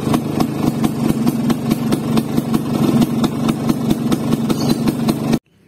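Vespa PX two-stroke single-cylinder engine idling steadily, with an even run of firing pulses, its ignition timing just set to 22 degrees before top dead centre after running too advanced. The sound cuts off abruptly near the end.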